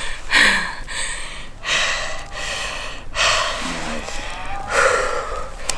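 A person breathing hard close to the microphone: four loud, noisy breaths, about one every second and a half.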